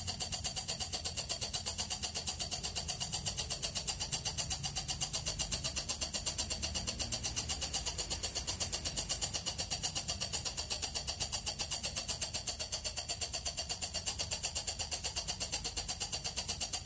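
Walang kecek, a katydid, chirping continuously: a fast, even pulsing trill with a high, ringing pitch.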